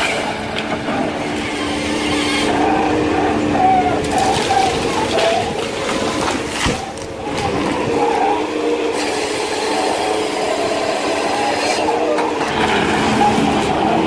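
Tracked forestry harvester running under load, its engine and hydraulics steady while the harvester head feeds and saws a spruce log, with one short sharp crack about two-thirds of the way through.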